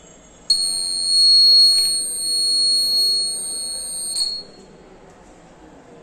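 Piezo buzzer of a shadow-alarm circuit sounding one steady, high-pitched electronic beep for nearly four seconds, then cutting off suddenly; it is set off by a hand's shadow falling on the light sensor.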